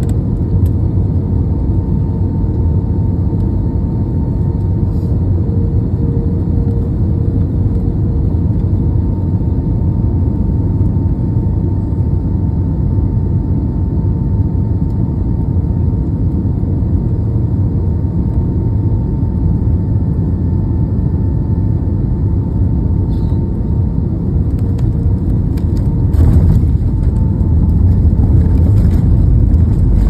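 Jet airliner cabin noise on final approach: a loud steady rumble of engines and rushing air with a faint steady hum above it. About 26 seconds in it gets louder with a few sharp knocks as the wheels touch down on the runway.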